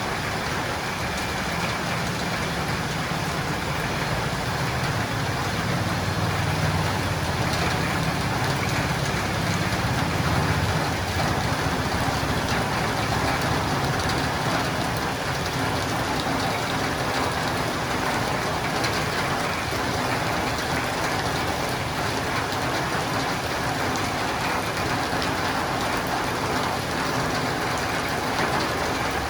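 Steady rain falling on a roof and windows, an even hiss throughout, with a low rumble under it for about the first ten seconds.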